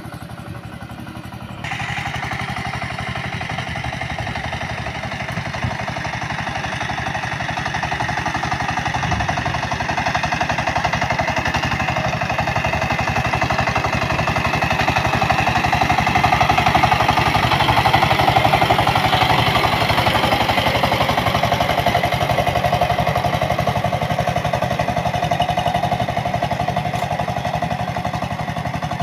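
Single-cylinder diesel engine of a two-wheel walking tractor (power tiller) running steadily under load as its rotary tiller churns soil: a fast, even chugging that jumps louder about two seconds in, peaks midway and eases a little near the end.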